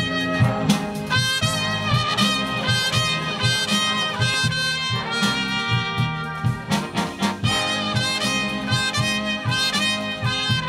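Live big band playing jazz, trumpets leading with trombones and saxophones over electric bass and drums keeping a steady beat.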